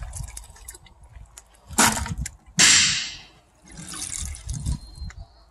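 Hands scooping and sloshing water in a plastic bucket, with several splashes and drips, as floating shredded shotgun-shell plastic is skimmed off the sunken brass.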